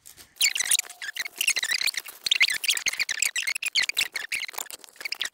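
Clear plastic bag crinkling and crackling as a diamond painting canvas is handled and pulled out of it: a dense, nearly continuous run of crackles.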